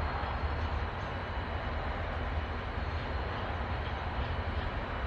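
Diesel locomotives idling in a rail yard: a steady low rumble with no change.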